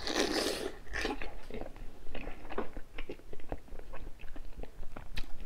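Close-miked mouth sounds of eating: a wet bite as a sauce-covered mouthful goes in, then steady chewing with many short smacks and clicks.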